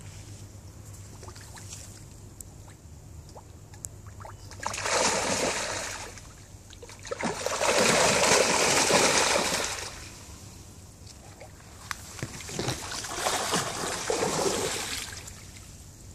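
Spawning carp thrashing and splashing in shallow, weedy water: three bouts of heavy splashing, each about two seconds long, the loudest near the middle.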